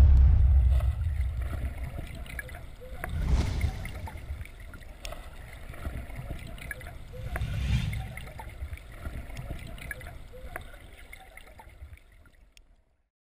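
Deep cinematic rumble under title cards, loudest at the start and slowly dying away, with two whooshes swelling and falling about three and eight seconds in. It fades out to silence near the end.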